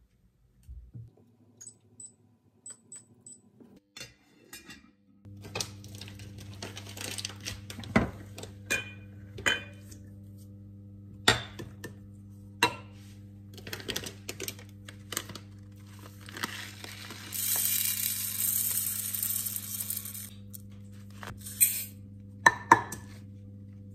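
Kitchen handling sounds: an enamel saucepan and its lid clinking on an induction hob, which then hums steadily from about five seconds in as it heats the water. Near the end, uncooked rice hisses as it pours into a rice cooker's inner pot, followed by sharp clicks of a plastic measuring cup knocking in the grains.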